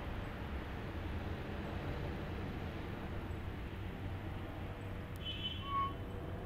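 Steady low outdoor background rumble, with one short high chirp about five seconds in that ends on a lower note.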